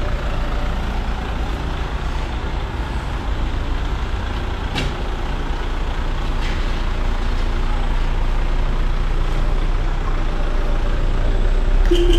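Kia Carens compact MPV's engine running at low speed as the car pulls out and drives off, a steady low rumble.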